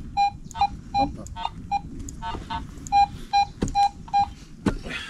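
Handheld metal detector or pinpointer beeping: a short beep at one steady high pitch, repeated about three times a second in two runs with a short break between them. A couple of sharp knocks come near the end.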